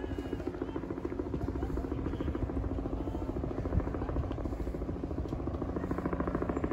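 A motor's steady drone with a rapid, even pulsing beat, a little stronger near the end.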